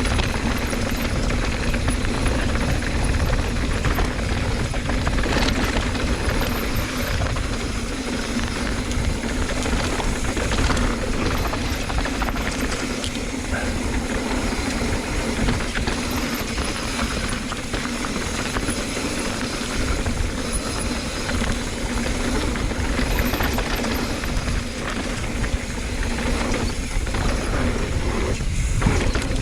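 Wind rushing over a rider-mounted camera's microphone on a fast mountain-bike descent, with tyres rolling over the dirt trail and a steady low hum underneath.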